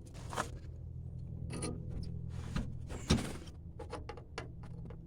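Scattered light metal taps and clicks of a center punch being handled and set against a ground-down rivet, with a sharper knock about three seconds in, over a steady low hum.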